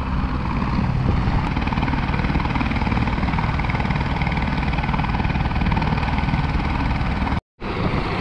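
Helicopter engine and rotor running steadily, a loud, dense low rumble. The sound cuts out completely for a moment near the end.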